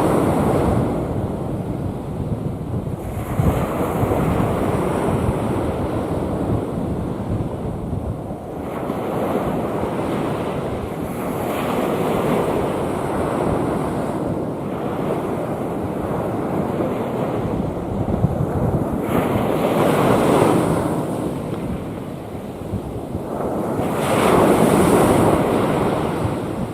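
Rough sea: waves breaking and washing in, swelling and falling every few seconds, with wind rumbling on the microphone.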